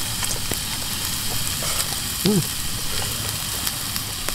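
Food frying and sizzling in a pot on a camping gas stove: a steady hiss with small crackles and pops. A short pitched sound rises and falls a little past halfway.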